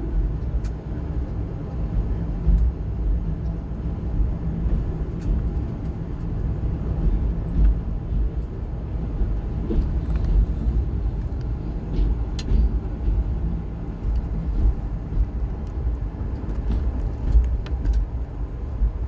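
Amaravati Express passenger train running on the line: a steady low rumble of wheels on track, with scattered faint clicks and knocks.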